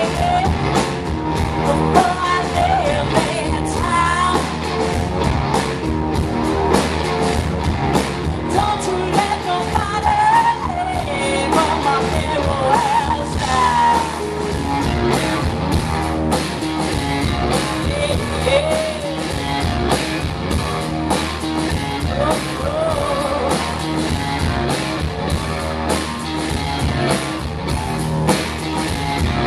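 Live blues band playing amplified music with a singer's voice over the band and a steady beat.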